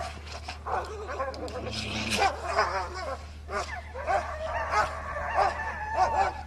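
Alaskan malamute vocalising in a run of short whining, yipping calls that rise and fall in pitch.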